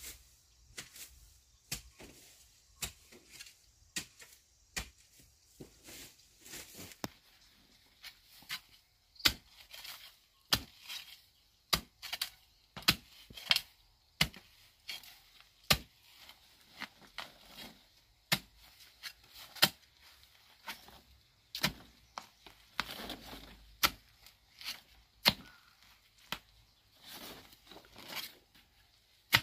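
A hand tool chopping or hacking repeatedly, a sharp strike roughly once a second at uneven strength, with a short stretch of rustling or scraping about two thirds of the way through.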